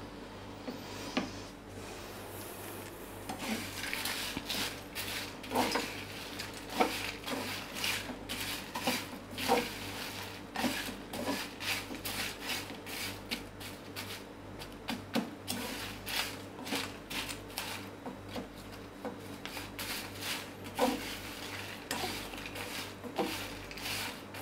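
Whole dry spices (dried red chillies, cardamom pods, cinnamon bark, bay leaves) being dry-roasted in a metal kadhai and stirred continuously with a spatula: irregular scrapes and rattling clicks of the spatula and spices against the pan, starting a few seconds in. The constant stirring keeps the spices from burning while they roast.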